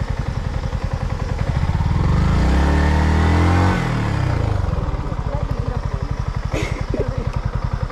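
Motorcycle engine running at low revs, revved up for about two seconds from around two seconds in, then dropping back abruptly to its steady low pulse. A brief knock sounds near the end.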